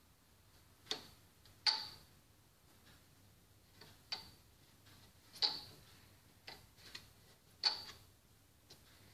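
Electric toaster with bread toasting, giving off about ten sharp, irregularly spaced ticks, each with a short ring.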